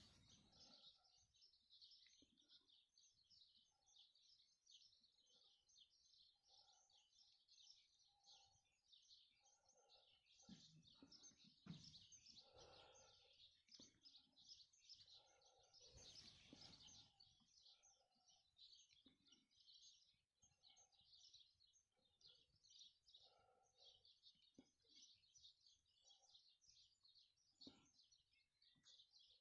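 Faint chorus of small birds chirping continuously, many short high notes overlapping, with a few softer lower calls and a couple of brief rustles.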